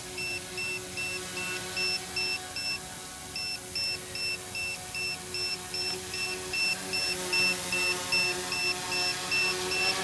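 Electronic alarm beeping about three times a second, with a short break about three seconds in, over the steady hum of a tricopter's electric motors as it comes down to land.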